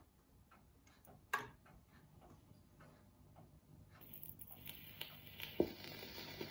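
Teppaz Oscar record player being cued by hand: soft ticks and a single sharp click about a second and a half in, then the stylus is set down on the spinning record with a soft thump, and the faint crackle and hiss of the lead-in groove begins.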